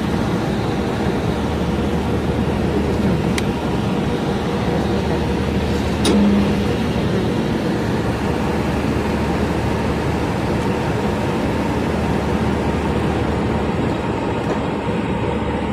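A vehicle engine running steadily, a continuous low hum, with a couple of short clicks of hand-work on metal parts.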